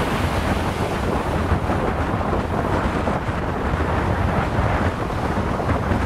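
Ocean surf breaking on a sandy beach, with steady wind buffeting the microphone as a low rumble.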